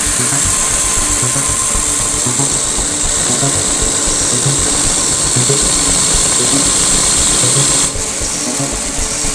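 Merritt sewing machine driven by its electric motor, running steadily as it stitches a strip of fabric, with background music underneath. The machine's sound changes abruptly near the end.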